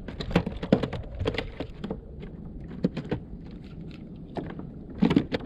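Handling noises on a plastic fishing kayak: irregular knocks and clatter, a quick flurry in the first second or so, scattered single knocks, and another burst of knocks near the end.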